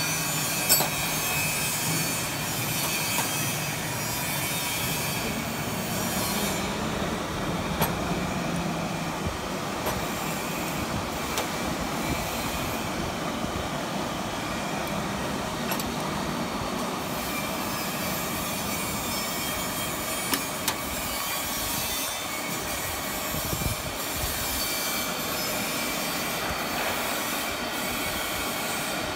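Steady machine running noise with a faint high whine, and now and then a short metallic click, as when steel collars and rods are handled and adjusted.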